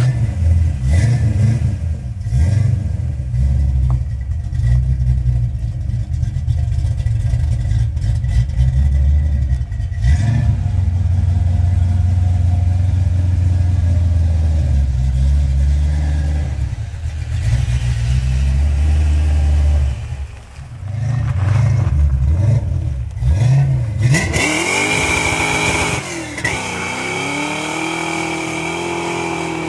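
1989 Ford Mustang fox body's 5.0 V8 running with a low rumble, rising and falling with the throttle. About 24 seconds in it revs up and the rear tyres break loose in a burnout, a high, steady squeal over the engine until the end.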